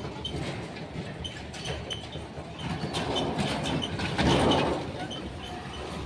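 Street noise of a small motor cart rattling past close by while a column marches on the road, with a louder noisy swell about four seconds in as the cart is nearest.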